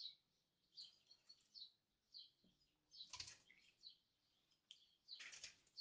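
Faint chirping of small birds, many short high calls throughout. Two brief scrapes of a table knife against the ration's quince-paste tin and biscuit come about three seconds and five seconds in.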